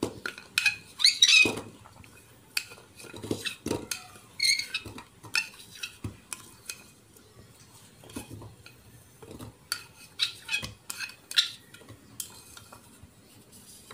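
A spoon scraping and knocking on a plate as chunks of galangal, ginger and garlic are pushed off it and drop into a glass blender jar: a run of separate clinks and knocks, a few ringing briefly.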